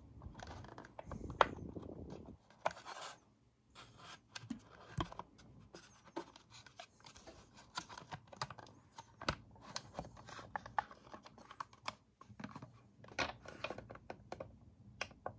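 Irregular plastic clicks, knocks and scrapes of hands fitting the switch and circuit board back into a Bodum coffee grinder's plastic housing.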